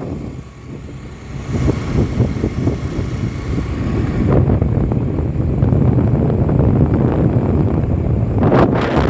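Steady low road noise from a moving vehicle, with wind buffeting the microphone and a few sharper gusts near the end.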